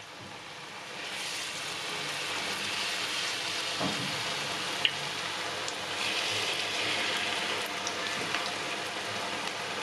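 Bakwan sayur (vegetable fritters) deep-frying in hot oil in a wok: a steady sizzle with scattered small pops, growing louder about a second in.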